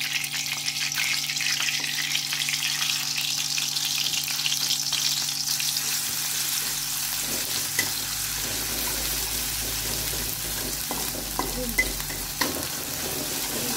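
Spice paste sizzling as it hits hot oil in a wok, sautéed and stirred with a metal spatula that scrapes across the pan. The sizzle is loudest in the first half and dies down as the stirring goes on.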